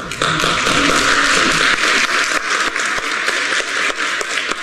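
Audience applauding: a dense clapping that starts just after the beginning and thins out gradually toward the end.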